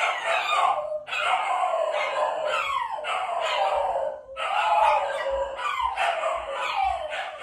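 Shiba Inus howling together: overlapping drawn-out howls, several falling in pitch over a steadier held note, broken by two short pauses.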